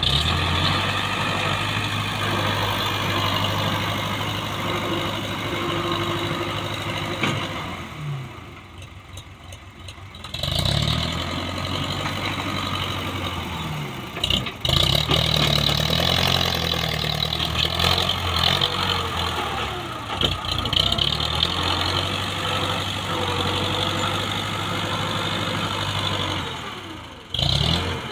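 Farm tractor's diesel engine running steadily as it hauls a loaded trolley. The engine sound drops away for a couple of seconds about a third of the way in, then comes back.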